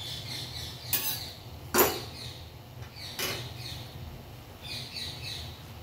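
Steel slotted spatula knocking and scraping on an iron tawa while a kulcha is pressed, three short strokes about a second apart, the second one loudest. Faint high chirps come and go under it.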